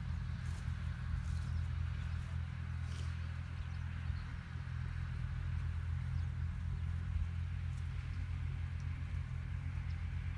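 New Holland TT55 tractor's diesel engine running steadily while mowing alfalfa, a constant low drone, with a steady hiss above it.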